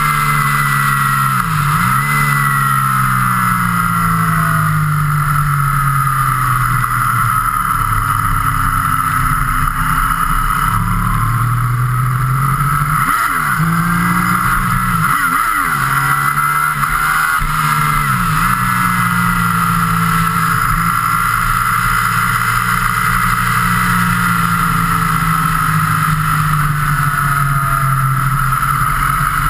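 A road vehicle's engine running at speed, its pitch drifting up and down as it speeds up and eases off, with a few brief sharp dips in pitch.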